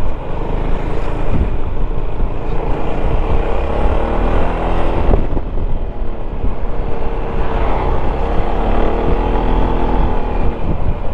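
Yamaha XMAX 300 scooter's single-cylinder engine running under way, its pitch rising and falling a few times as the speed changes, heard through a helmet microphone over a steady low wind rumble.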